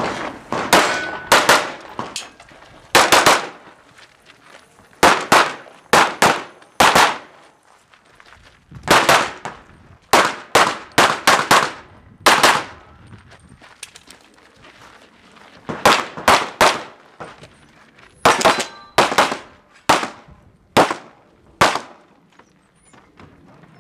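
Gunshots fired in a USPSA practical-shooting stage: mostly quick pairs about a third of a second apart, with pauses of one to three seconds between groups as the shooter moves from target to target, some thirty shots in all.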